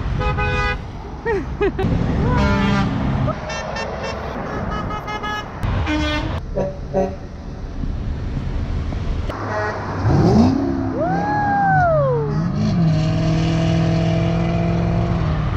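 Road traffic passing, with drivers honking car horns several short times in the first half. About two-thirds through, a drawn-out rising-and-falling call is heard. Near the end a steady low tone holds.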